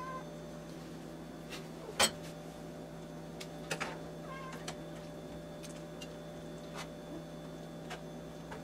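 A utensil knocking and scraping in a nonstick frying pan while a thick pasta mixture is stirred, with one sharp knock about two seconds in and two quicker ones a little before four seconds. Brief squeaky chirps come near the start and about four seconds in, over a steady low hum.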